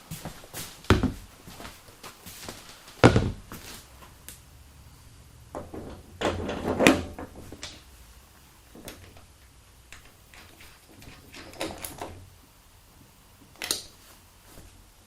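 Scattered knocks and clunks from hands-on assembly work on a go-kart: a sharp knock about a second in, a louder one near three seconds, a cluster of clunks around six to seven seconds, and a short knock near the end.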